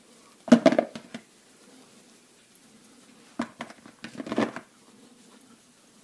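Plastic vacuum massage cups clattering against each other and a plastic bowl as they are picked up and handled, in two short bursts of clicks and knocks about three seconds apart.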